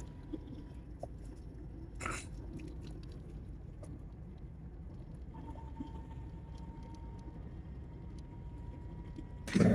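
Steady low road and engine rumble inside a moving car's cabin, with a brief knock about two seconds in and a faint thin tone joining about halfway through.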